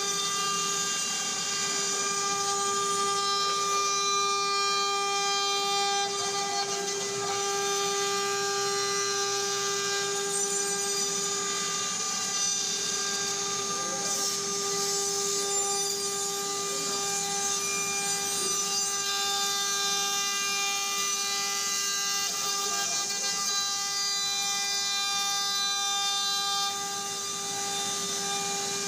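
CNC router spindle running with a steady high whine while the bit carves a wooden door panel.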